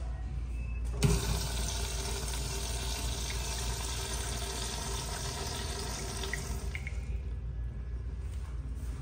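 Urinal flush valve flushing: a sharp clunk about a second in as the valve is tripped, then several seconds of rushing water with a faint steady hum, tapering off as the valve shuts around seven seconds in.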